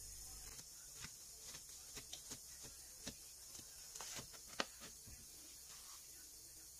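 Knife slicing down through a cream-topped no-bake cake onto a wooden cutting board: faint scattered clicks and light taps, the sharpest about four and a half seconds in.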